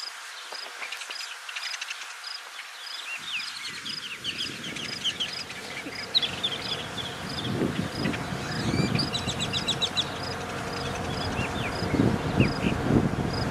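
Wild birds singing and chirping, with a short high note repeating about twice a second and a brief trill. Wind rumbles on the microphone from about three seconds in.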